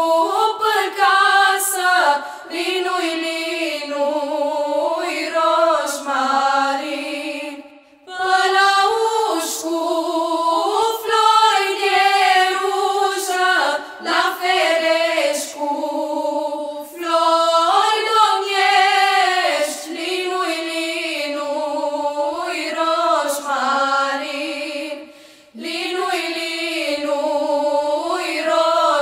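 Female vocal ensemble singing a Romanian folk carol a cappella, with short breaks between phrases about eight seconds in and again near the end.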